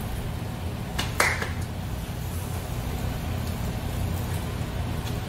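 Steady low hum and room noise at a barbecue restaurant table, with two light clicks about a second in.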